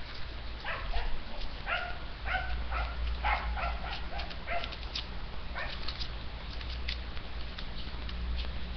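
A dog barking, a string of short barks through the first six seconds or so, over a steady low hum.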